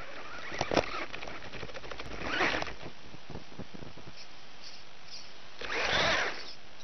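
Onboard audio from a 4x4 RC truck bouncing over rough ground. A steady hiss runs under a sharp knock about a second in and a short rush a little later. The loudest sound is a rushing scrape about six seconds in as the truck tips and rolls over.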